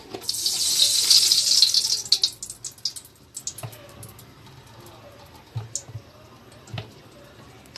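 Cooking oil pouring in a thin stream from a bottle into an empty metal pot, with a loud, even hissing splash for about two seconds. Then a few scattered light clicks follow as the pouring stops.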